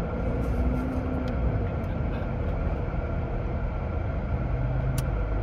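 Steady car cabin noise while driving: low engine and road rumble under the hiss of the air conditioning, with one sharp click near the end.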